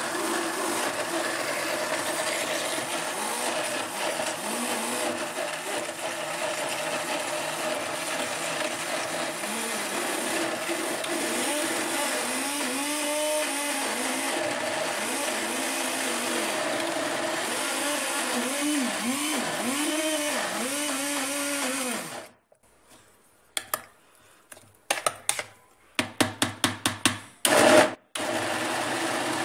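Countertop blender motor running, blending rice, eggs, mozzarella and milk into a thick batter; in the middle its pitch repeatedly dips and recovers as the heavy mixture loads the motor. About 22 seconds in it stops, is switched on in a series of short pulses, then runs steadily again near the end.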